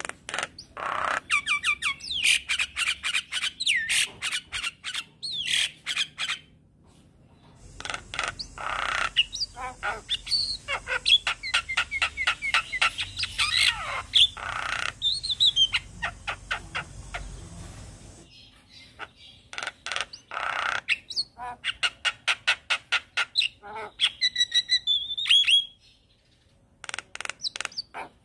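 Javan myna singing vigorously: fast runs of harsh clicking and squawking notes mixed with short whistles, in long bursts broken by two brief pauses.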